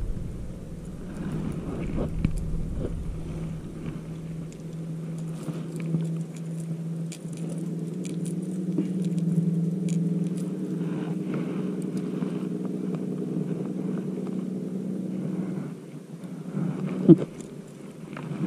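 A steady motor hum that cuts off about three-quarters of the way through, under small clicks of a fishing lure's hooks and split ring being handled. One sharp click comes near the end.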